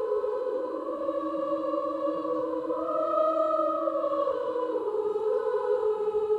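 Soundtrack music of slow, sustained chords, without a beat; the chord rises in the middle and settles back near the end.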